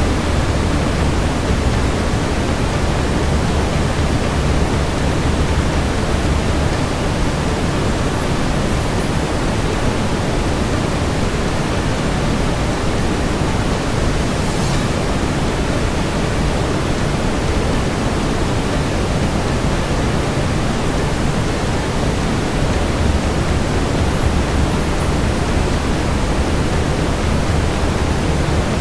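Steady brown noise: an even, deep, rumbling hiss with most of its weight in the low end, unchanging in level. A faint short click, typical of a fireplace crackle, shows about halfway through.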